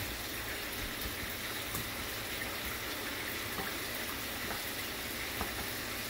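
A steady hiss of kitchen background noise, with a couple of faint short taps.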